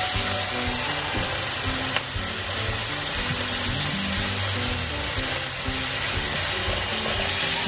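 Garlic and spicy canned tuna sizzling steadily in hot oil in a stainless steel wok while a spatula stirs them, with background music.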